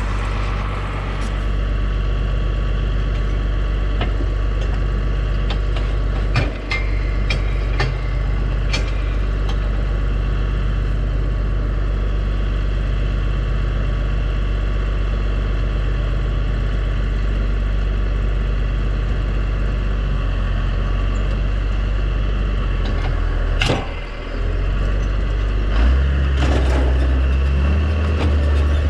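John Deere 4055 tractor's diesel engine running steadily, with a few sharp knocks scattered through. Near the end the drone gets louder and deeper.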